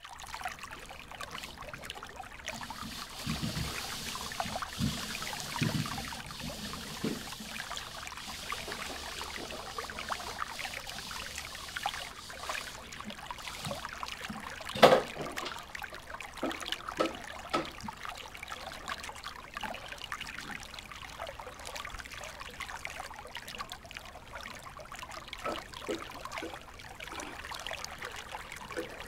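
Aquarium water trickling steadily, with scattered small clicks and one sharp knock about halfway through.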